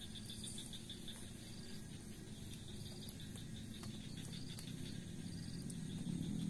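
Insects chirping in repeated short trains of rapid pulses, over a faint steady low rumble.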